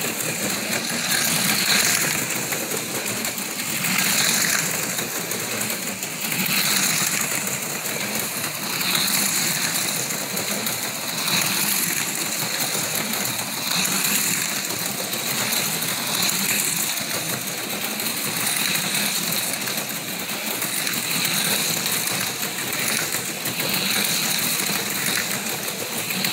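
HO scale slot cars lapping a plastic track: small electric motors whirring and rattling in the slots, the sound swelling about every two seconds as the cars come round.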